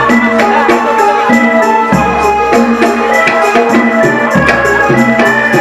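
Lively music with a steady percussion beat of drum strokes and rattling, over sustained melody notes and a bass line that changes note every second or so.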